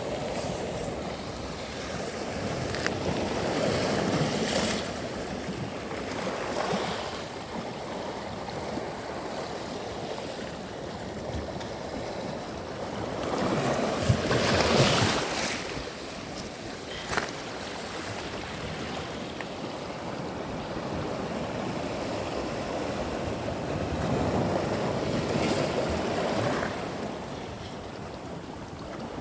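Sea waves washing onto a sandy beach, the surf swelling and falling back three times, the loudest wave about halfway through.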